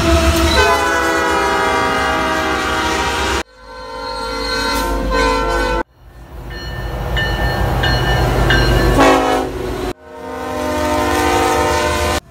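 Diesel locomotive air horns sounding as Norfolk Southern freight locomotives pass, in four short clips cut together. Twice, about half a second in and again near nine seconds, the horn chord slides down in pitch as the locomotive goes by.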